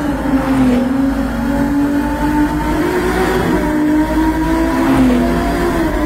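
Ferrari 296 GTS's 120° V6 running at high revs. The engine note wavers, dipping shortly after the start and again near the end, and rising in between.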